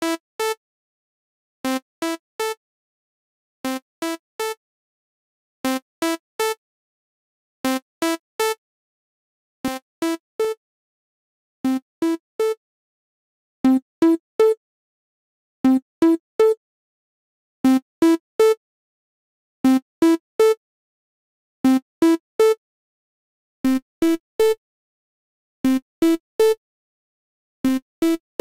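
Novation V-Station software synthesizer playing an experimental house lead patch: a phrase of three short notes rising in pitch, repeated about every two seconds with gaps between. It gets louder about halfway through.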